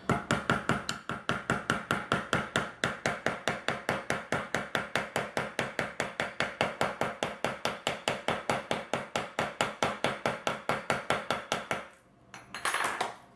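Rapid, even hammer taps on a metal snap setter, about six or seven a second for some twelve seconds, setting a line 20 snap cap onto its post against a metal anvil seat, then stopping.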